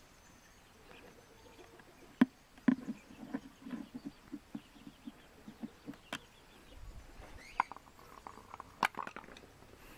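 A hand screwdriver backs a screw out of a Honda CRF 230F's air-filter side cover. There are sharp metal clicks, then a run of short ticks about three a second as the screw turns, then a few more clicks near the end.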